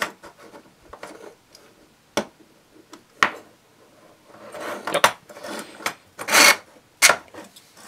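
3D-printed plastic vise parts handled and fitted onto steel threaded rods: scattered light clicks and knocks, and rubbing scrapes of plastic on rod and bench. The longest and loudest scrape comes about six seconds in.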